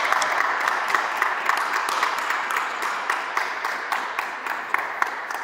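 A small group applauding, with a steady patter of hand claps that slowly dies down.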